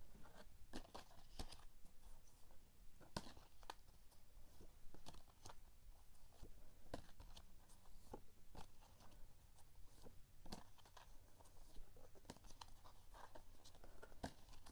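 Faint handling of a stack of printed art cards: scattered light clicks and rustles of card stock as the cards are shuffled and swapped one after another.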